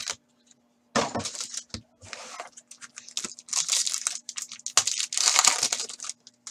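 A foil hockey card pack (Upper Deck Full Force) being torn open and its wrapper crinkled, in several irregular bursts of tearing and rustling.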